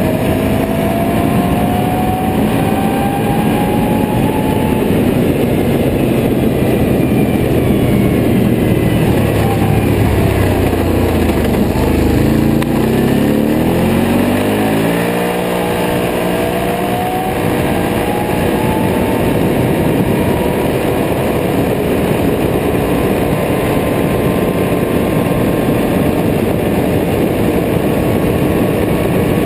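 Can-Am Renegade 800R ATV's V-twin engine running at speed, heard from on board. Its pitch rises as it accelerates, drops off about ten seconds in as the machine slows, then climbs again to a steady high cruise.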